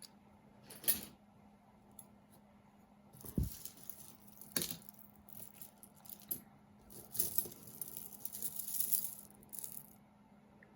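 Pieces of costume jewelry clinking and jingling as they are handled and sorted, with a few sharp clicks.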